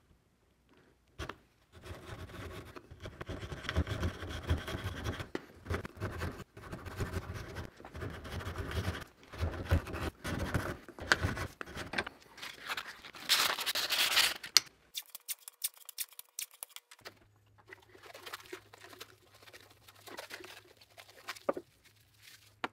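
A wooden knife-handle piece rubbed back and forth across a coarse file, rapid repeated scraping strokes for about thirteen seconds that stop abruptly. After that, only faint handling noises and one sharp click near the end.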